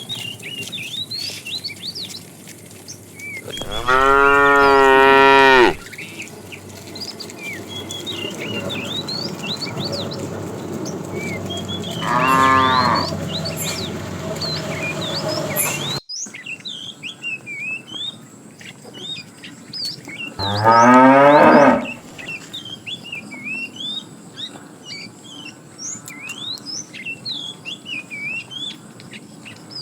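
Cows mooing: three separate long moos, the middle one softer, the last rising in pitch as it starts.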